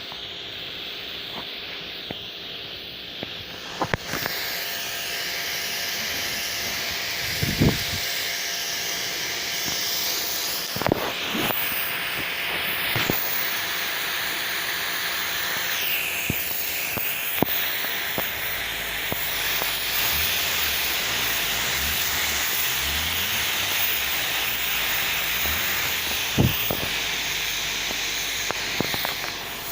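Jato Clean J6800 high-pressure washer spraying, a steady hiss of the water jet that gets louder about four seconds in, with a few short knocks along the way.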